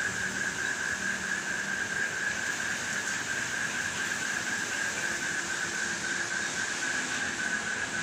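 Wind blowing through garden trees and shrubs, a steady rushing noise, with a continuous high-pitched pulsing trill running underneath.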